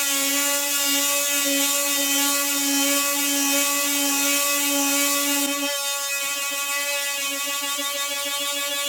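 Ryu RMT 6 oscillating multi-tool running at speed with a steady, high buzzing hum. About five and a half seconds in its tone changes and the lowest note becomes weaker and pulsing.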